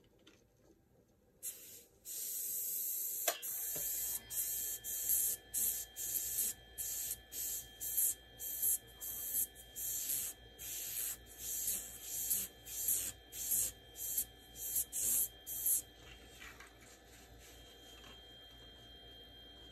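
Airbrush spraying paint: a high hiss that starts about a second and a half in and runs steadily for a couple of seconds, then comes in quick short bursts, more than one a second, and stops a few seconds before the end.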